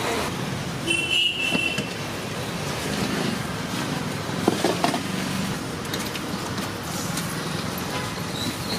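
Steady roadside traffic noise from passing vehicles, with a brief high-pitched tone about a second in and a few scattered clicks.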